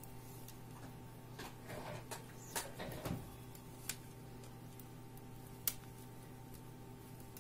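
3 mm knitting needles clicking faintly and irregularly as stitches are worked quickly, a few sharp clicks scattered through, over a faint steady hum.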